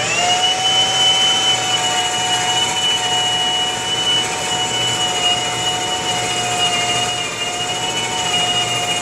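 Handheld electric drill drilling into a welded-on aluminum bung, the hole that will be tapped for a pipe thread. The motor spins up at the start, then runs at a steady whine under load.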